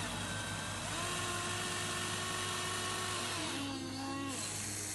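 A small electric motor whining steadily over a low hum, its pitch rising about a second in and dropping about three and a half seconds in.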